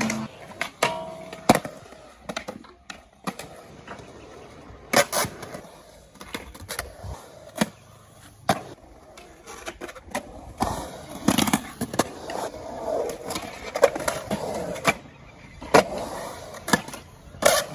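Skateboard rolling on concrete, its wheels making a steady grinding roll, broken again and again by sharp clacks and slaps as the board pops, lands and hits the bowl's coping.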